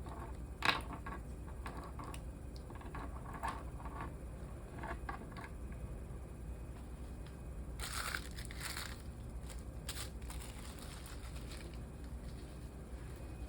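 Handling noise: scattered light clicks and taps, then a short crinkling rustle about eight seconds in, over a steady low hum.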